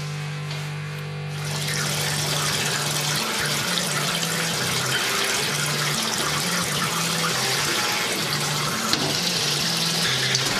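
Water running from a bathtub tap, steady and growing louder about a second and a half in. Under it is a low hum that steps back and forth between two pitches.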